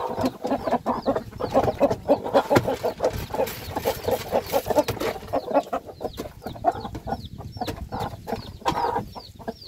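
Chickens clucking busily with chicks peeping: many short, high chirps over a dense, steady clucking chatter.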